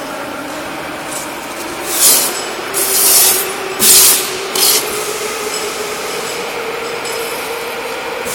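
CNC milling machine running, its spindle whine holding steady and slowly rising in pitch. Four short, loud bursts of hissing noise come between about two and five seconds in.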